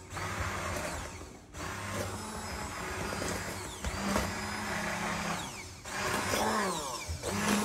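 A 600 W hand-held immersion blender running with its blade down in a glass bowl of thin ricotta and milk batter, pausing briefly twice before running on.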